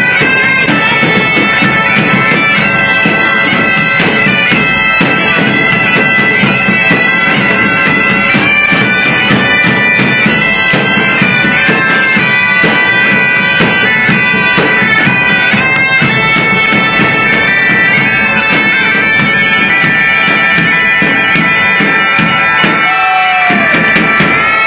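Bagpipe music: bagpipes play a tune over their steady drones, with percussion beneath.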